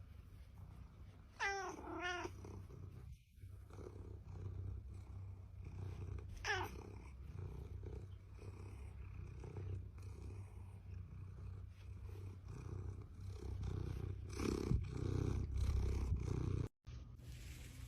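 Domestic cat purring steadily in a low, continuous rumble close to the microphone. Two short cat calls come about one and a half to two seconds in, and one more about six seconds in.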